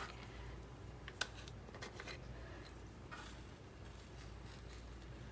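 Aged black embossing enamel powder sprinkled from a small jar onto a paper journal page: a faint, soft rustle of granules, with one light click about a second in.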